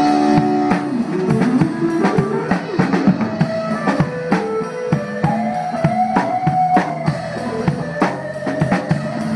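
Live band playing: a drum kit with bass drum and snare strikes over electric guitars.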